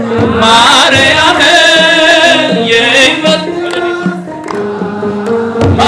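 A crowd singing an Ethiopian Orthodox hymn (mezmur) to Mary, calling out "Mariam", with hand clapping and a drum beat.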